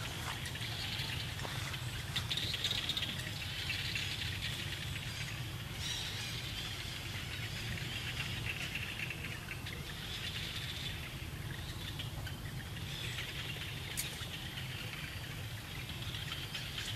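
Forest ambience: a steady high-pitched chorus that swells and fades every second or two, over a low steady hum. A single sharp click about fourteen seconds in.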